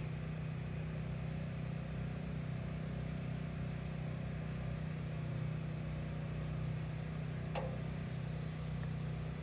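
Steady low mechanical hum, even in level throughout, with a single sharp click about seven and a half seconds in.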